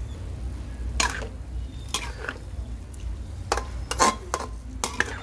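Spatula scraping and knocking against a metal wok while stir-frying beef and greens, in about seven separate strokes, over a steady low hum.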